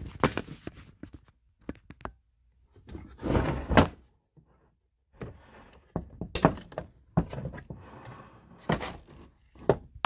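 Sheet-metal case of a Rock-Ola 52280-A jukebox amplifier being handled and pushed open by hand: scattered metal clanks and knocks, with a longer scraping sound about three seconds in.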